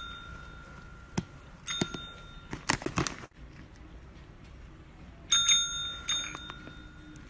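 Cat pressing a desk call bell with its paw: bright dings that ring on and fade, once about two seconds in and twice close together near the end. A short clatter of knocks comes between them.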